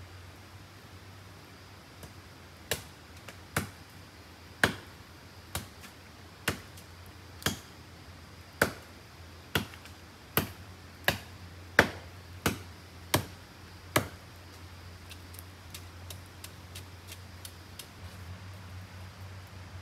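A tool striking wood in a steady series of about fourteen sharp chops, roughly one a second and quickening a little, stopping about fourteen seconds in; a few lighter taps follow.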